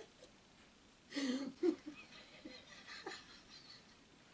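Soft laughter and chuckling from a couple of people, a short burst about a second in, then fainter breathy chuckles.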